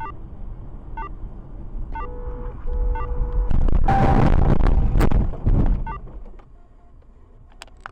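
Car cabin noise with a tick about once a second, a car horn blowing twice just after two seconds in, then a loud collision crash lasting about two seconds with a sharp crack in the middle.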